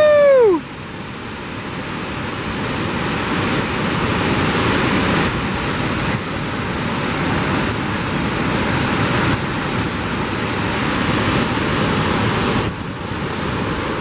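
Waterfall in heavy spring flow rushing steadily, a loud, even wash of falling white water that drops a little near the end.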